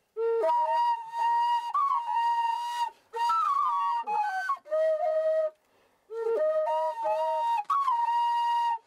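Flute melody as background music: held notes with quick ornamental turns between them, played in short phrases with brief pauses.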